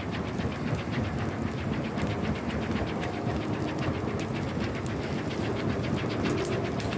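A flat hand fan waved rapidly over a charcoal grill, flapping in a fast, even rhythm of about four to five strokes a second, over a steady rushing background.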